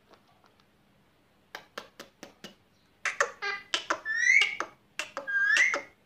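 Indian ringneck parakeet calling: four short sharp chirps, then a run of loud squawks with two longer calls that rise and level off near the end.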